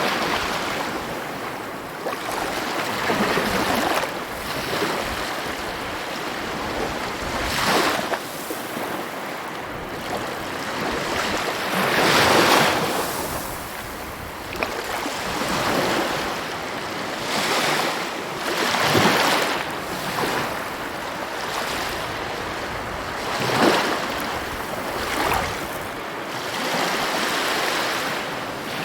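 Sea waves breaking one after another, a surge every few seconds over a continuous hiss of surf.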